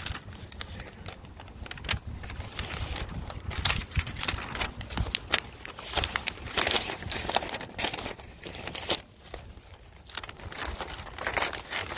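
Sheets of paper rustling and crinkling as they are handled and leafed through close to the microphone, in irregular short bursts.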